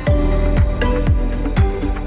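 Electronic background music with a steady kick-drum beat, about two thumps a second, under held synth chords.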